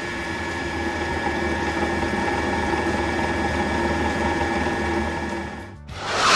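Dubbed cartoon sound effect: a steady, unchanging hum of several held tones. It drops away just before the end, as a loud whoosh begins.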